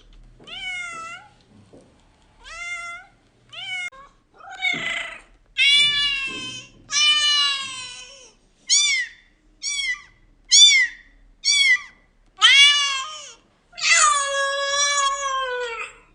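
Domestic cat meowing repeatedly, about a dozen calls: short rising-and-falling meows mixed with longer ones, ending in one long drawn-out meow.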